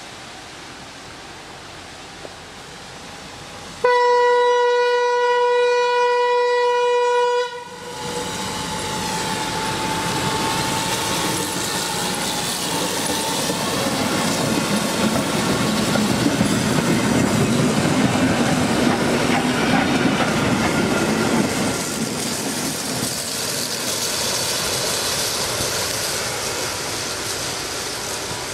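Small diesel locomotive sounds one long horn blast about four seconds in, a steady tone of some three and a half seconds that cuts off sharply, as it nears a level crossing. The locomotive then runs past with its engine and wheels on the rails, getting louder as it goes by and easing off near the end.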